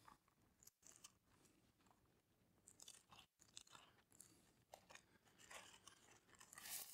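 Near silence with faint, scattered rustles and crackles of Bible pages being turned, and a soft hiss building near the end.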